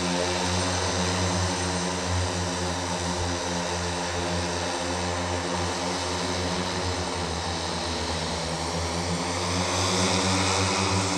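The Hexa electric vertical-takeoff aircraft's 18 electric motors and propellers hovering: a steady drone of many blade tones layered together, growing a little louder near the end.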